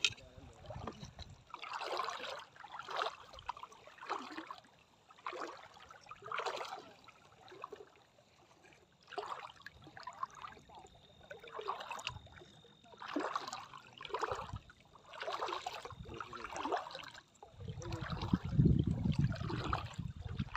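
Someone wading through shallow seawater, each step a short splash, about one a second. Near the end, wind rumbles on the microphone.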